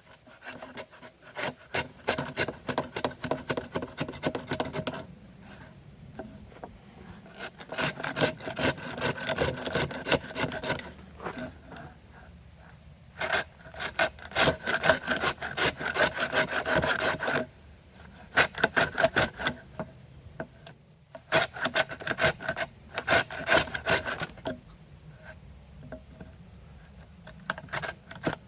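Rapid back-and-forth strokes of a hand tool cutting wood, in bursts of two to five seconds with short pauses between them. A steady metallic ring sounds through each burst.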